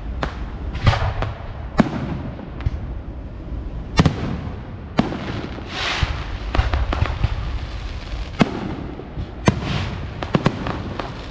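Fireworks going off: a run of sharp bangs and cracks at irregular intervals over a continuous low rumble, with a crackling hiss about six seconds in.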